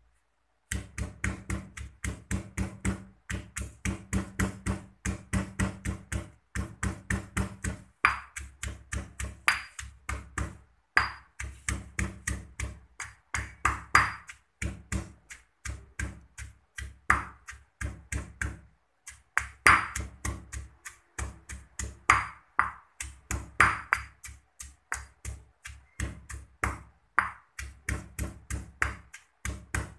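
Pestle pounding chillies, garlic and lemongrass in a stone mortar: a steady rhythm of dull knocks, about three a second, with a few brief pauses. Some strokes ring out with a sharper ping off the stone.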